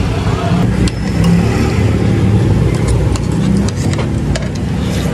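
A motor vehicle's engine running close by, a steady low rumble, with a few light clicks over it.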